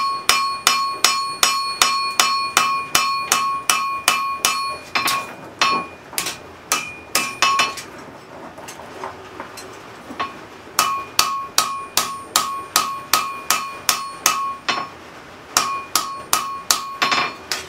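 Blacksmith's hand hammer striking a hot railroad spike on an anvil in a steady rhythm of about three blows a second, each blow leaving a bright ringing anvil tone. These are light clean-up blows and flat edge work on the forged tomahawk blade. The hammering drops to a few faint taps for a few seconds about halfway through, then picks up again.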